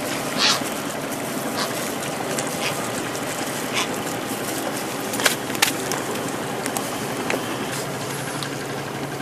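Steady seaside background noise, wind and water, with a few sharp clicks. A low, steady hum comes in near the end.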